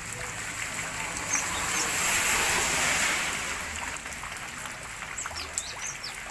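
Water trickling and splashing steadily, swelling briefly a couple of seconds in, with a few faint high bird chirps near the end.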